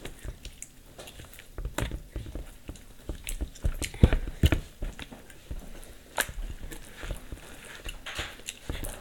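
Glue slime, still setting, being kneaded and squeezed by hand in a plastic bowl: irregular wet squelches and sticky clicks.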